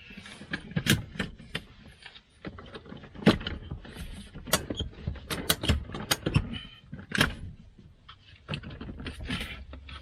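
Irregular clicks and knocks of a rigid infant car-seat base being pushed into place and latched onto the vehicle seat's anchors.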